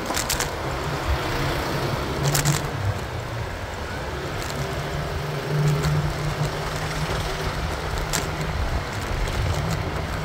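Motorcycle engine running steadily under way, with road and traffic noise around it and a few short clicks.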